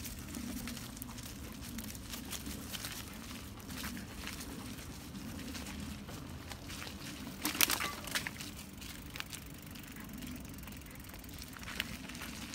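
Wet fallen leaves crunching and rustling under movement along a leaf-covered path and grass, with a steady low rumble underneath. A louder burst of crackling comes about seven and a half seconds in.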